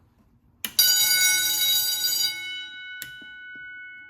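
A fire alarm bell rings for about a second and a half, then stops and its gong rings on, fading slowly. There is a short knock just before it starts and another about three seconds in.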